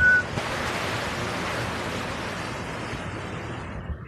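Steady rushing hiss of floodwater stirred around a person wading beside a floating plastic tub; it drops away just before the end. A brief high whistle-like note sounds right at the start.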